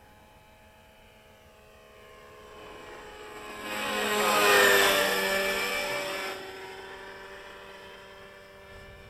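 Radio-controlled model helicopter flying past close by: its engine and rotor tones swell to a loud peak around the middle, then drop in pitch and fade as it moves away.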